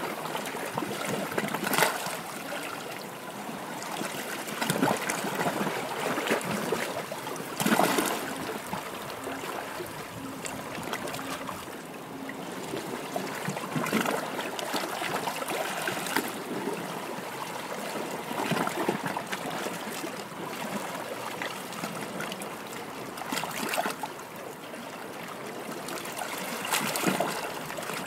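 Rushing, trickling water noise that swells and eases every few seconds, with brief sharper surges.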